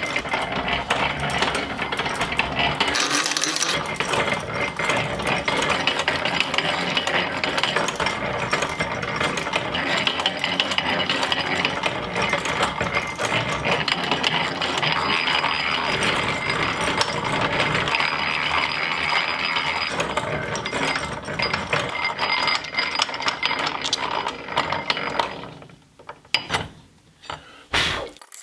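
Antique hand-cranked cast-iron post drill running, its gears turning with a steady mechanical clatter as the twist bit bores into a wood board. The noise stops about 25 seconds in, followed by a few separate knocks.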